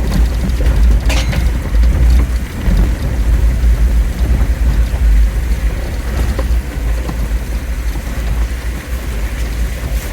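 Jeep Wrangler driving, a loud, steady low rumble with scattered clicks and rattles and one sharper crack about a second in.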